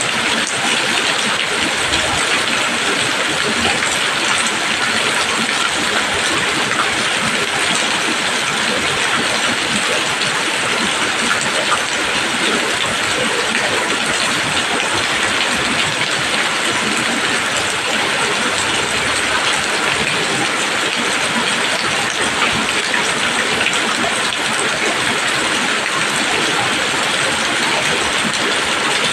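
Steady rain falling on leaves: a dense, even hiss of many drops that neither builds nor fades.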